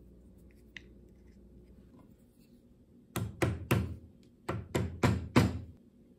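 Hand knocking a white oak arm down onto metal dowel centers set in the stand's frame, pressing the points into the wood to mark the dowel positions: about seven sharp knocks in two quick groups, starting about three seconds in. A small metal click comes earlier as a dowel center is seated.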